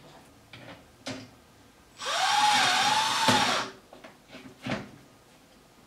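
Cordless drill driving a screw for under two seconds, its motor whine rising quickly and then holding. A few light clicks from handling the drill and screw come before and after.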